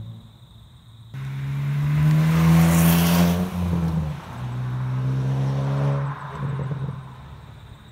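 2022 Hyundai i20 N's 1.6-litre turbocharged four-cylinder petrol engine accelerating hard past, its pitch rising. A brief break about four seconds in as it shifts up, then it climbs in pitch again and fades as the car pulls away.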